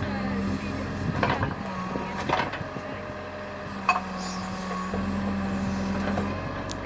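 Cat 432F2 backhoe loader's diesel engine running under varying load, its note strengthening and easing, with several sharp knocks from the working machine.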